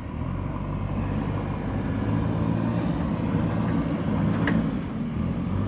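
Diesel engine of a JCB backhoe loader running steadily, with a short sharp click about four and a half seconds in.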